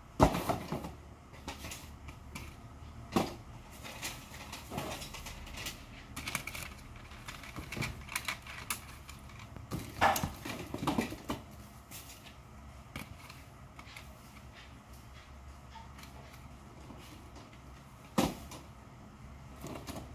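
Plastic clothes hangers clicking and clattering as a bundle is handled and pulled from a cardboard box. There are scattered knocks throughout, with sharper ones at the start, about halfway through and near the end.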